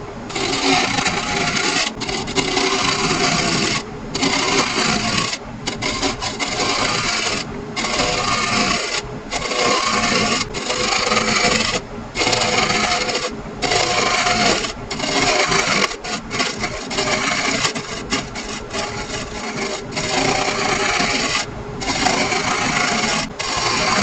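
Spindle roughing gouge cutting a laminated wood blank spinning on a wood lathe, rough-turning the square glued-up box round: a steady noisy hiss of shaving wood, broken by short gaps every second or two as the tool comes off the work.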